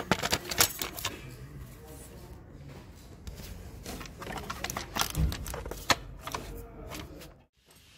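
Scattered metallic clicks and clinks of parts and bolts being handled and fitted around a car's engine mount, with a brief drop-out near the end.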